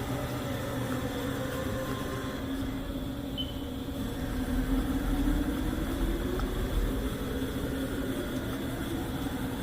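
Haas VF-3 vertical machining center running under power, with a motor hum whose pitch dips and then rises and falls again as it gets a little louder midway.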